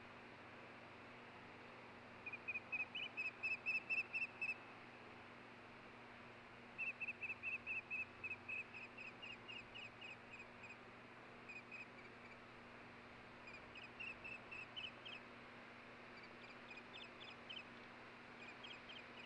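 Osprey calling: bouts of short, high whistled chirps, about four or five a second. The first two bouts are the loudest, and the later ones are fainter and more broken.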